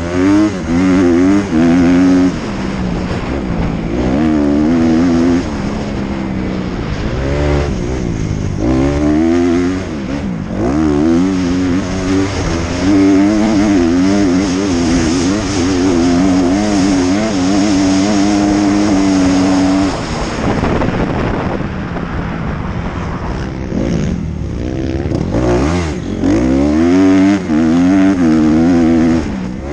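Dirt bike engine revving hard and shifting up, its pitch climbing and dropping several times, heard from the rider's helmet. Midway it holds a long steady pull, then backs off to a lower note before revving up again near the end.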